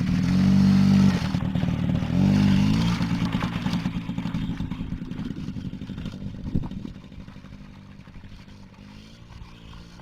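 Small youth ATV engine revving up twice as it pulls away, then fading steadily as it rides off until it is faint.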